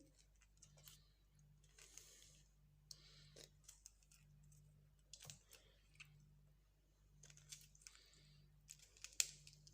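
Faint, scattered clicks and scrapes of a spoon scooping the pulp out of a lemon half into a glass.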